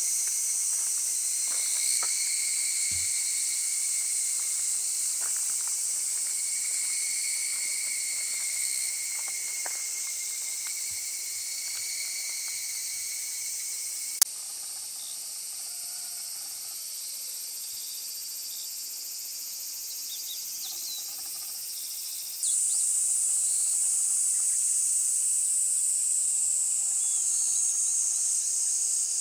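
Summer chorus of cicadas and other insects, including higurashi cicadas: a steady high-pitched drone. The sound changes abruptly with a sharp click about halfway through, and gets louder again about three quarters of the way in.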